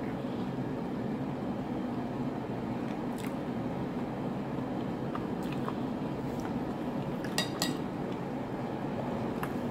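Scattered sharp clicks and clinks of utensils against dishes while eating seafood ramen, the loudest two in quick succession about three-quarters of the way through, over a steady low hum.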